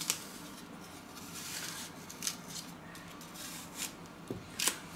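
Kitchen knife cutting the core out of an apple on a wooden cutting board: faint slicing with a few short sharp clicks, several of them close together near the end.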